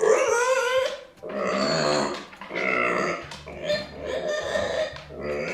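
Micro pig giving a run of about five loud, harsh calls, each about a second long. These are the cries of a discontented, angry pig left behind by its owners.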